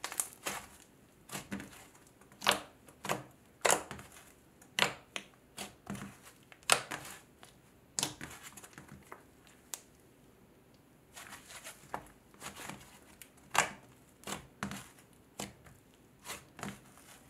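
Icy and cloud hybrid slime being squished and pressed by hand, giving irregular crackling pops, about one or two a second, with a short lull about halfway through.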